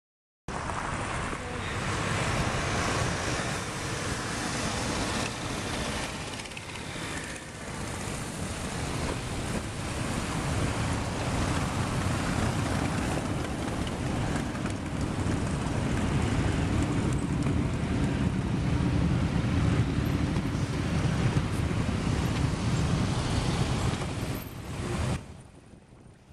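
A long procession of motorcycles, mostly cruisers, riding past one after another, many engines running together in steady engine and road noise. It starts abruptly and drops away sharply about a second before the end.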